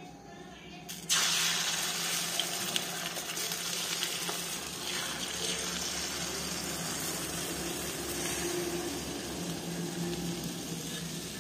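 Beaten egg and onion poured into hot oil in a kadai, starting a sudden sizzle about a second in that then continues as a steady frying hiss.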